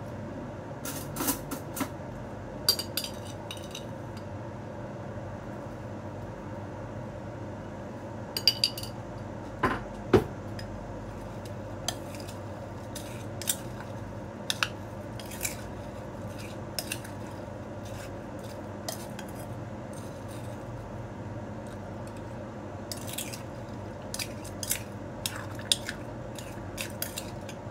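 A spoon clinking and scraping against a ceramic bowl while watermelon cubes and black jelly are stirred together: irregular sharp clicks, a few louder ones about ten seconds in, over a steady low background hum.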